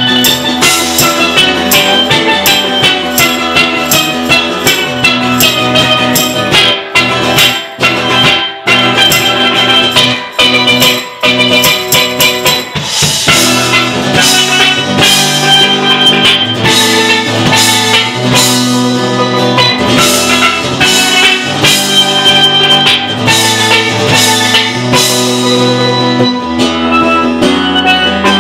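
Live instrumental music: a steelpan played with mallets over a strummed acoustic guitar and a drum beat. It becomes fuller about halfway through, with low notes held under the melody.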